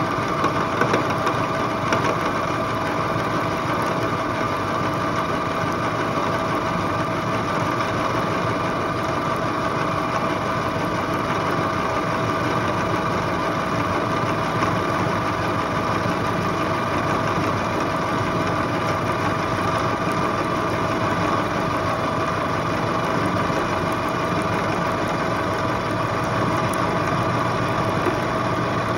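Milling machine spindle running with a corner-rounding cutter cutting a radius along the edge of a metal block: a steady, even machine whine with ongoing cutting noise.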